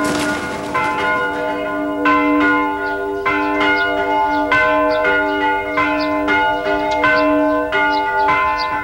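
Church bells in a monastery bell tower rung by hand with ropes. Several bells of different pitch are struck again and again, about twice a second, and each strike rings on into the next.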